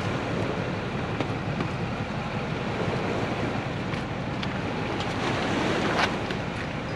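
Steady rushing of wind on the microphone mixed with water lapping at the lakeshore, with a couple of faint clicks near the end.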